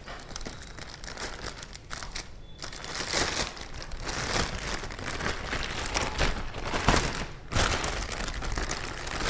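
Clear plastic wrapping bag crinkling and rustling in irregular crackles as it is handled and pulled open, louder from about three seconds in.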